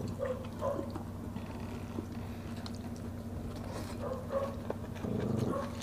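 Soft eating sounds of people eating by hand: quiet chewing, small mouth clicks and fingers working rice, over a steady low hum. A brief low murmur comes near the end.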